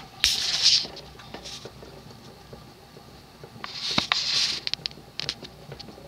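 Evergo 36-inch three-speed industrial ceiling fan running on low with a faint steady motor hum, interrupted twice by short bursts of rustling noise and by a few light clicks.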